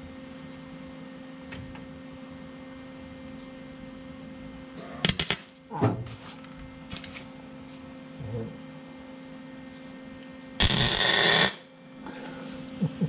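MIG (wire-feed) welder tack-welding a steel shock tower: a few short crackling arc bursts about five and seven seconds in, then one sustained crackling burst of about a second near the end, over a steady electrical hum.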